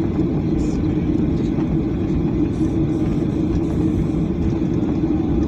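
Jet airliner cabin noise while taxiing: a steady low rumble from the engines at taxi power and the wheels rolling on the concrete, with a steady hum running through it.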